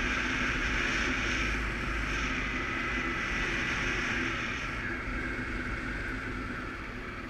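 Suzuki KingQuad ATV engine running steadily under way, easing off slightly about five seconds in.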